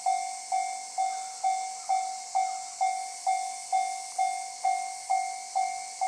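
Japanese railway level-crossing electronic warning bell ringing in a steady repeated 'kan-kan' of about two sharp strikes a second, each fading quickly, signalling that a train is approaching. A steady high hiss runs beneath.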